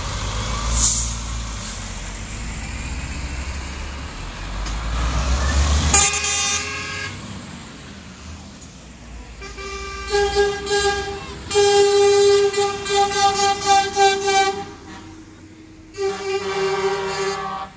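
Heavy trucks' diesel engines rumbling as they pass slowly, then truck air horns: one blast about six seconds in, a run of repeated blasts from about ten to fifteen seconds, and a last blast near the end.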